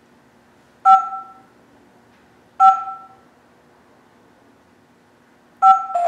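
2GIG Go!Control alarm panel beeping three times as its touchscreen buttons are pressed to select security and arm the system. Each is a short two-note beep that fades within about half a second; the first two come close together, the third about three seconds later.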